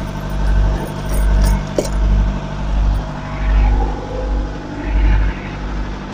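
Diesel truck engines idling, a steady low hum with a deep rumble that swells and falls about once a second.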